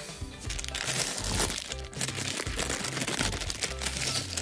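Plastic bag of Lego bricks crinkling as it is handled and torn open, with the plastic bricks clattering together, over background music.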